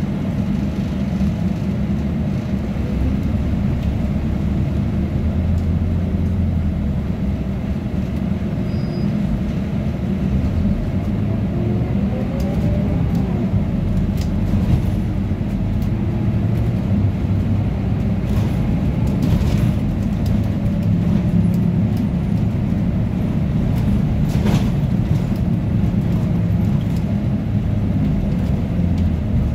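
Cabin noise of a Scania OmniLink CK230UB city bus under way: steady engine and drivetrain rumble through its ZF 5HP504C automatic gearbox, overlaid by the air-conditioning blowers. A faint whine rises and falls about twelve seconds in, and a few short rattles come later.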